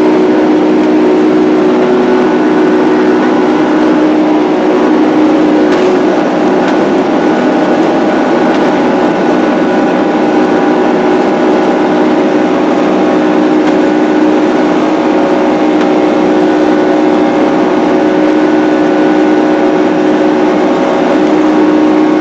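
Boeing 767's jet engines at high power for takeoff, heard from inside the passenger cabin: a loud, steady rushing noise with several steady hums running through it.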